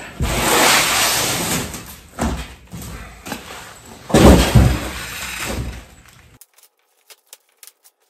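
Cardboard box and foam packing rustling and scraping as a foam-wrapped e-bike is hauled out of its shipping box, with a heavy thump about four seconds in as the bike comes down to the floor. The sound stops suddenly about six seconds in, leaving only a few faint clicks.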